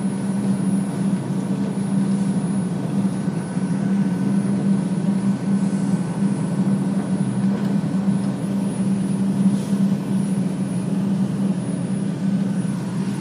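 Inside an R142 subway car rolling slowly forward: a steady low hum from the train's motors and equipment over wheel-on-rail rumble, with faint higher steady tones.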